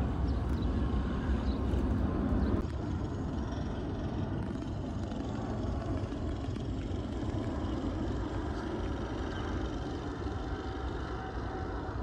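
Steady low rumble of distant engine noise, traffic or aircraft, dipping slightly about two and a half seconds in.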